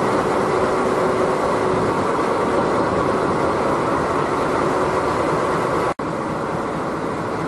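Steady, continuous train noise, with a brief break in the sound about six seconds in, after which it carries on a little quieter.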